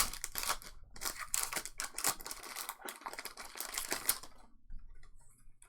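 Trading cards and pack wrappers being handled: a quick run of clicks and crinkles as cards are flicked through and wrappers handled, stopping about four seconds in.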